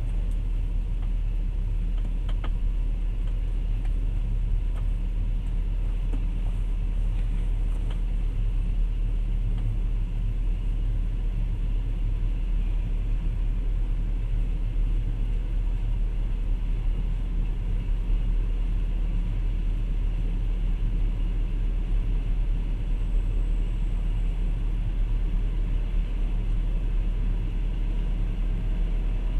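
Steady low rumble of a passenger train running along the track, heard from inside the carriage, with a faint click about two seconds in.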